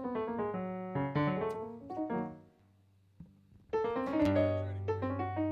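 Solo piano playing: a run of notes that dies away for about a second, then new chords over a held low bass note.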